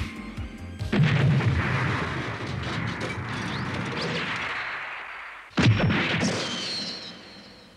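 Two explosion sound effects: a sudden blast about a second in that rumbles and dies away over several seconds, then a second blast near the end that fades out.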